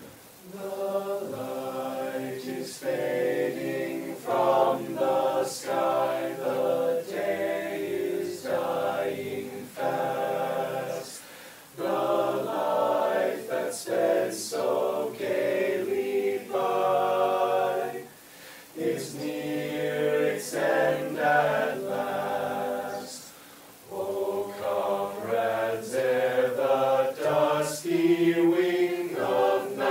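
An a cappella vocal group singing a song in several-part harmony with no instruments. The group comes in together just after the start and sings in phrases broken by short pauses for breath.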